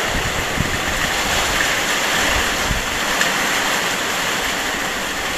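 Heavy rainstorm: rain pouring steadily on the trees and foliage along with strong wind, with a few low rumbles of wind on the microphone.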